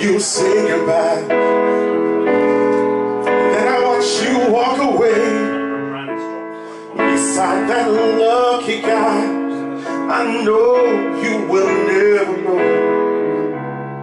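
A man singing a slow ballad over his own piano accompaniment on an electric keyboard, with held chords under the wavering sung line and a brief lull about six seconds in before the next phrase.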